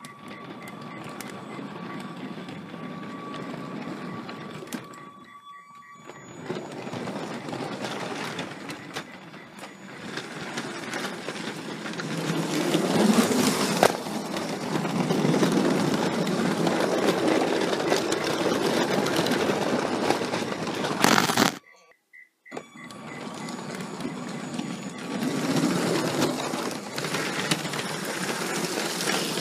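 LEGO 7938 passenger train running along plastic track, heard from a camera riding on the train: a steady whirring and rattling of the Power Functions train motor and wheels. It grows louder partway through and cuts out abruptly for under a second about three-quarters of the way in.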